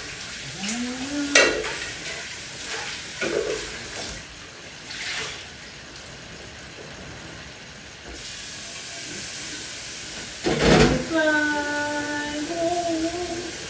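Kitchen sounds over a steady hiss: several sharp knocks of pots or utensils, the loudest about eleven seconds in. Right after it, a voice holds a sung note for two or three seconds, wavering near the end.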